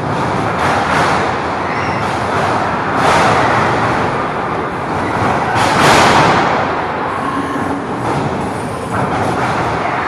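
Loud, continuous din of a small live wrestling crowd echoing in a large, bare hall. It swells about three seconds in, again around six seconds, and once more near the end.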